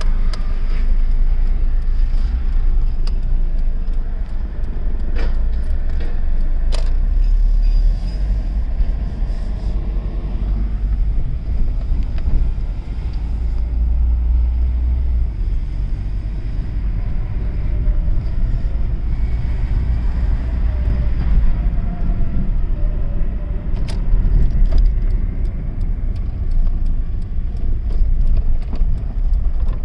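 Hyundai Santamo with an automatic gearbox driving slowly at low engine revs, heard from inside the cabin as a steady low engine and road rumble. A few short clicks or rattles sound over it.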